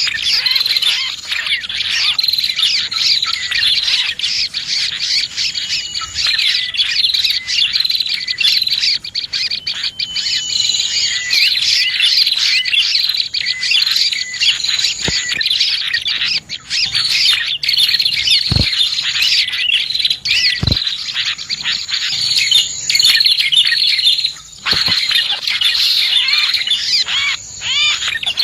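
Dense chorus of small birds, prinias (prenjak) among them, chirping and twittering without pause in many overlapping high calls. It is a bird-lure (pikat) call recording, played to draw small birds in.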